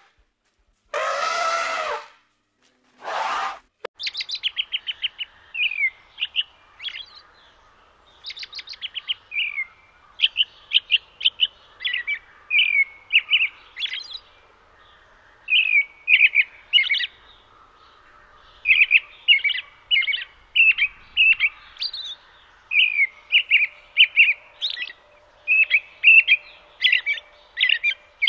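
Elephants trumpeting twice, loud calls with many overtones, in the first few seconds. Then a European robin sings a long run of short chirps and quick trills.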